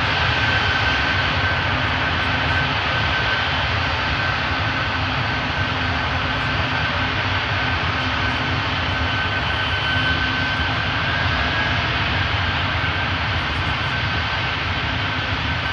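Antonov An-124's four turbofan engines running as the jet rolls along the runway after landing: a steady noise with a high whine held throughout.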